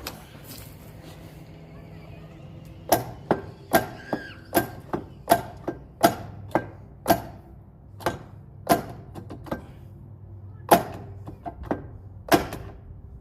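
A hammer striking metal on a heavy-equipment drive hub: a run of sharp, irregular blows with brief ringing, starting about three seconds in and going on for about ten seconds, one or two strikes a second.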